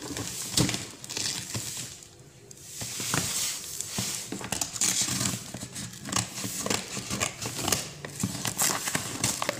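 Brown paper wrapping and packing tape being torn and peeled off a cardboard box by hand, with crinkling and ripping and irregular clicks. The sound briefly dips about two seconds in.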